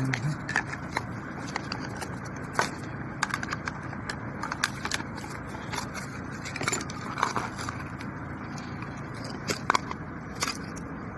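Scattered metal clicks and scrapes of screwdrivers prying at an electric motor's end housing, which its bearing holds fast, over steady background noise.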